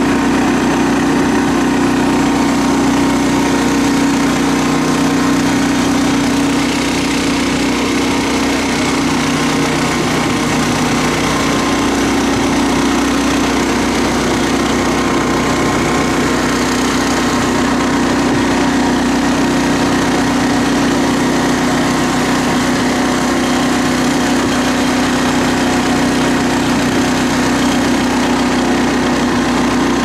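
Small petrol engine of a forestry monorail carrier running steadily under load as it hauls the cart up the rail on a slope, an even drone.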